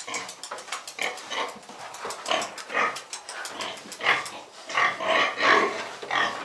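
A pen of newly weaned piglets grunting and squealing in short, rapidly repeated calls, louder in the second half. They are frightened piglets just taken from their sows.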